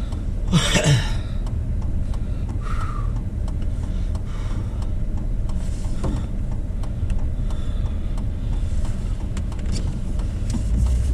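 A four-wheel-drive car being driven on snow-covered roads, heard from inside the cabin: a steady low rumble of engine and tyres. A short, loud hiss comes just under a second in.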